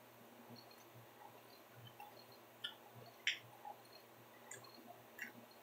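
Near silence: faint room tone with a few short, faint clicks, the loudest about three seconds in.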